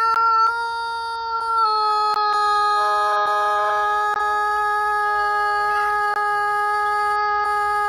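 Rooster holding one very long, unbroken crow at a nearly steady pitch, dipping slightly lower about a second and a half in.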